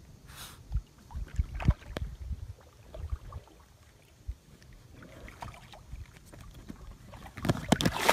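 Scattered low thumps and knocks from an inflatable kayak on open water. Near the end a dog leaps off the bow and lands in the lake with a splash.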